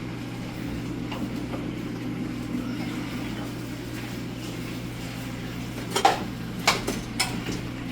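Steady low kitchen hum, then a few sharp clinks and knocks of pots and utensils about six to seven seconds in.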